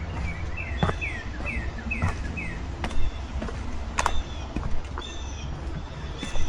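Songbirds calling outdoors: a quick run of five downward-sliding chirps about a second in, with other higher chirps scattered after. Beneath them runs a steady low rumble, and a few sharp knocks stand out.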